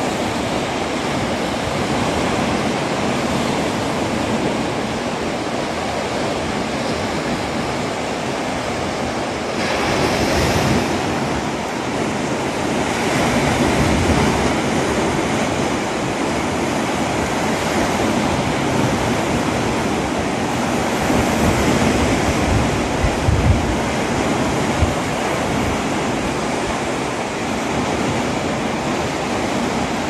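Calm sea washing gently over rocks below a cliff: a steady surf hiss that swells a little now and then. A few low bumps of wind on the microphone come near the end.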